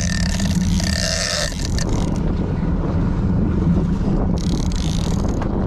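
A boat's engine running with a low, steady rumble, with wind gusting on the microphone twice, about a second in and again near the end.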